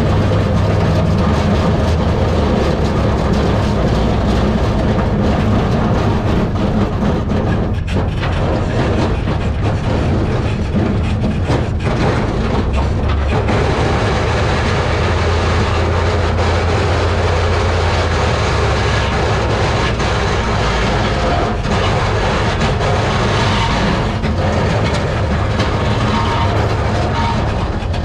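A dirt modified's GM 602 crate small-block V8 running steadily at low speed, heard from inside the open cockpit, with two brief dips about eight and thirteen seconds in.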